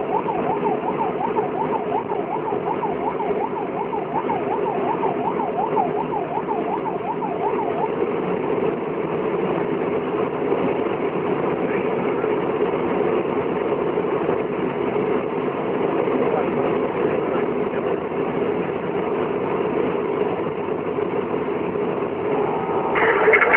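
Vehicle siren on a fast yelp, warbling up and down about three to four times a second, cutting out about eight seconds in. Under it runs the steady engine and road noise of the vehicle driving.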